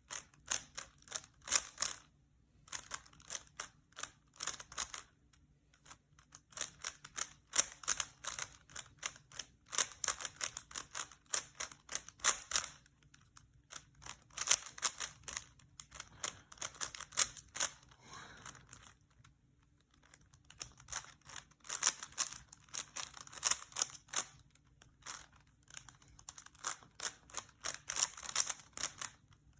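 Plastic Rubik's Cube being twisted by hand: rapid runs of clicking and clacking as the layers turn, broken several times by pauses of a second or so.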